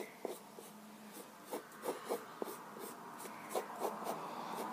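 Pencil drawing on a sheet of paper: a run of short, irregular scratching strokes.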